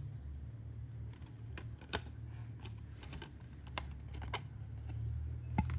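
Light, irregular clicks and taps of a cardboard CD digipack being handled and repositioned, over a steady low hum.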